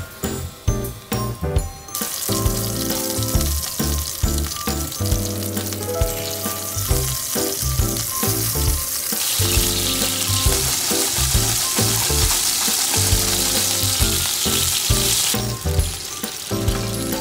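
Coated chicken breast pieces sizzling as they shallow-fry in hot oil in a frying pan; the sizzle sets in about two seconds in and stops shortly before the end, with background music throughout.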